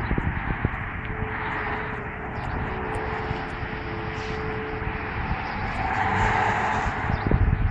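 Distant Whelen outdoor tornado warning sirens sounding in a test, a steady wail, with irregular low buffeting on the phone's microphone.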